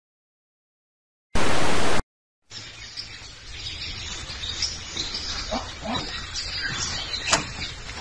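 A loud burst of hiss lasting under a second, then, after a short gap, outdoor ambience: small birds chirping over a steady low rumble, with one sharp click late on.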